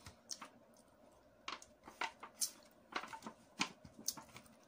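Fingers picking through a disposable aluminium foil tray: a scattering of irregular small clicks and crinkles, about half a dozen, spread across the few seconds.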